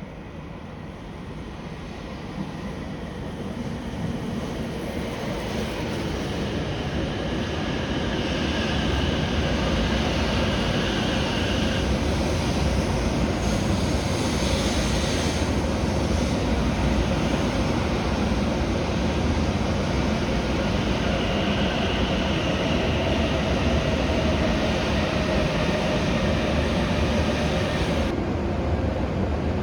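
An E7/W7-series Hokuriku Shinkansen train running in to the platform: its running noise swells over the first several seconds, then holds as a steady rush with a high whine that comes and goes and a tone that falls slowly as it slows.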